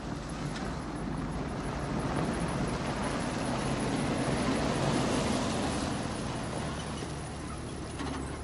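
Old pickup truck driving past: engine and tyre noise rise as it comes close, peak about halfway through, then fade as it moves away.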